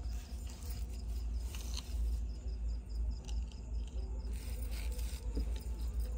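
Insect chirping in a fast, even pulse of about five or six chirps a second, over a steady low rumble.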